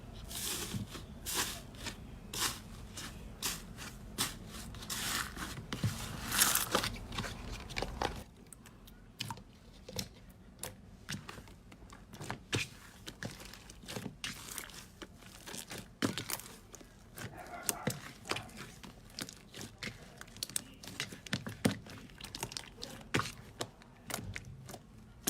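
Soap cubes being cut with a knife: a run of crisp crackles and snaps in close succession, dense for the first several seconds and then sparser.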